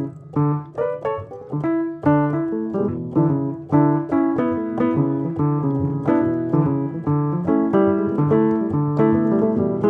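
Background music: a piano playing a gentle melody over chords, notes struck several times a second.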